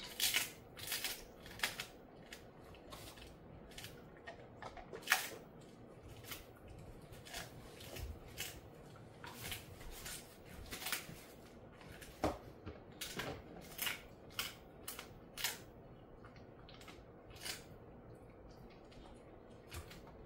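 A dog chewing a dried meat jerky treat: irregular sharp crunches and teeth clicks, dense in the first half and thinning out toward the end.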